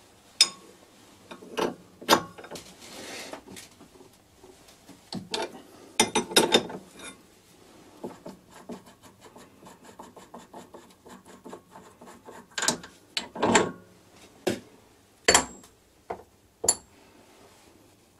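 Scattered metal clanks, knocks and scraping from tools and a milled metal workpiece being handled at a stopped lathe. The loudest knocks come about half a second in, around six seconds in, and around thirteen and fifteen seconds in.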